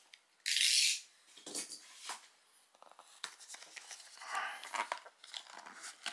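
The seal on a small cardboard box being broken open in one short, sharp rasp about half a second in, followed by quieter rustles and small clicks of cardboard flaps being handled.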